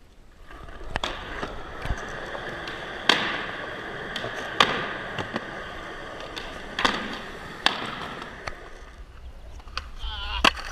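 Skateboard wheels rolling on pavement, a steady rumble that builds up about half a second in and dies away near the end, broken by about five sharp clicks as the wheels cross cracks or joints.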